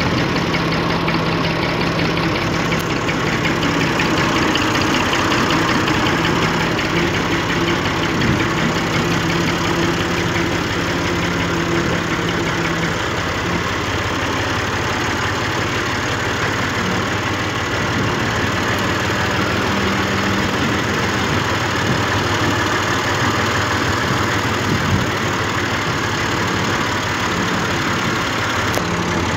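Tractor engine running steadily, with a low, even drone whose pitch shifts slightly about halfway through.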